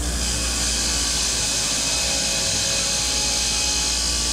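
Bench grinder running with a wire wheel while a steel engine valve is pressed against it, a steady, bright scratchy hiss over the motor's low hum as the wire brush scours carbon sludge off the valve. The scratching grows louder just as the valve meets the wheel.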